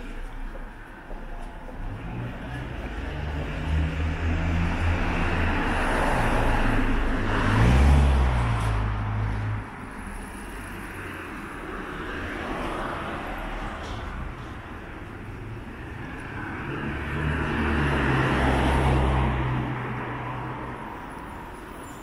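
Two motor vehicles passing close by on the street, each engine hum and tyre noise swelling up and fading away. The first is the louder, peaking about eight seconds in and dropping off sharply just before ten; the second passes near the end.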